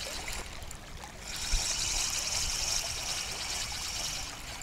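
Spinning reel being cranked to wind in line: a fast, fine whirring tick that breaks off about a second in, starts again and stops just before the end. A brief low bump comes about a second and a half in.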